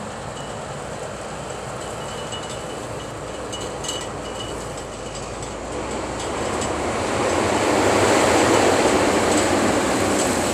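A Fendt 724 tractor running under load as it pulls a six-furrow reversible plough through the soil, growing louder as it draws near, loudest about eight seconds in, then easing slightly.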